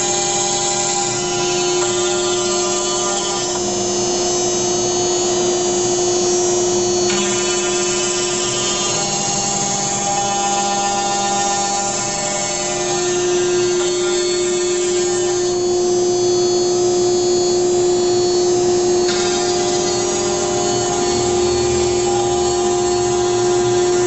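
ShopBot Buddy CNC router's spindle running with a steady high whine as its bit mills copper-clad circuit board, over a rushing cutting noise. The sound changes abruptly three times.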